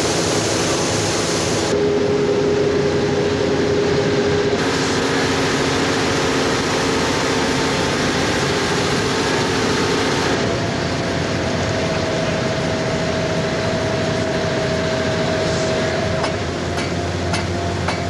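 Steady mechanical running noise with a low hum and a few steady tones, its character shifting abruptly several times. A few light clicks near the end.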